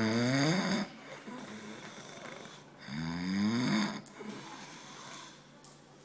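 A man snoring deeply: one snore, rising in pitch, ends in the first second, and another comes about three seconds in and lasts about a second, with quieter breathing between.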